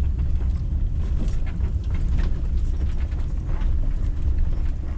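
Steady low engine and road rumble from inside the cab of a Roadtrek Zion camper van driving slowly, with a few light clicks and rattles.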